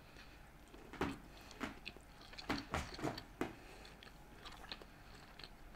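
Close-miked chewing of a mouthful of sushi: soft wet mouth clicks and smacks, clustered between about one and three and a half seconds in, with a few fainter ones near the end.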